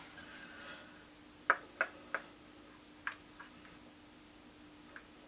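Makeup blush compacts being handled: a handful of light clicks and taps, three close together about a second and a half in and a few fainter ones later.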